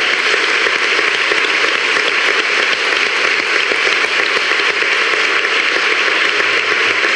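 A roomful of people applauding: steady, sustained clapping.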